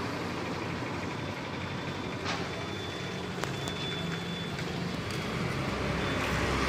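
Steady road traffic noise, with a motor vehicle's low rumble growing louder near the end.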